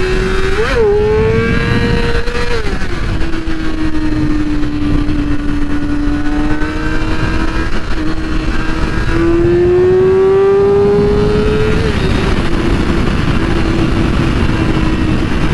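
2008 Yamaha R6's inline-four engine running at high revs while riding, its pitch rising and falling with throttle and shifts: a quick rise about a second in, a drop near three seconds, a slow climb from about nine to twelve seconds, then a drop. A steady rush of wind runs under it.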